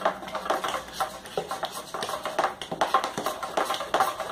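Metal spoon stirring a thickening soap mixture in a glass bowl, clinking and scraping against the glass several times a second with a light ring. The lye-and-fat batch is saponifying and turning from liquid to paste, so it is stirred without stopping.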